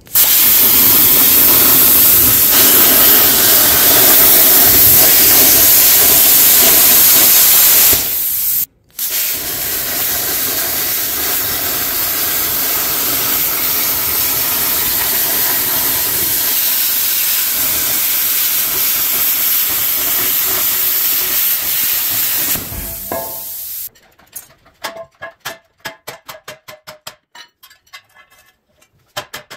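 Plasma cutter cutting steel sheet: a loud steady hiss from the arc and air jet that stops for a moment about a third of the way in, then runs on until near the end. After it, a quick run of light hammer taps on steel.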